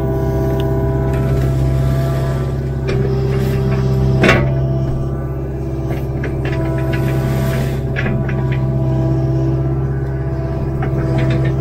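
Kubota KX057-4 mini excavator's diesel engine running steadily under load, with a hydraulic whine that shifts in pitch as the boom and bucket move. Several sharp cracks of brush and small branches breaking under the bucket, the loudest about four seconds in.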